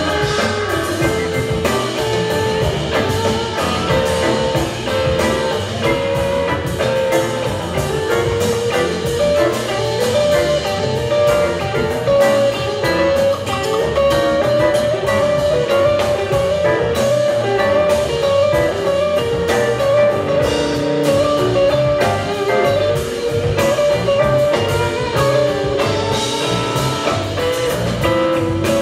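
Live rock band playing an instrumental jam: electric guitar holding sustained notes over bass and a drum kit.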